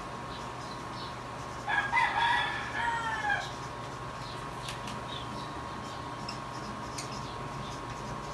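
A rooster crows once, about two seconds in, lasting under two seconds, over a faint steady hum. Faint scratches of a marker writing on a poster follow.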